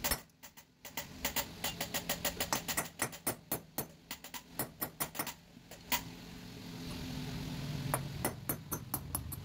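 Hammer striking a steel drift to drive the valve guide out of a Honda CD 70 cylinder head: a quick run of sharp metal-on-metal blows, about four a second, stopping about six seconds in, then a few more near the end.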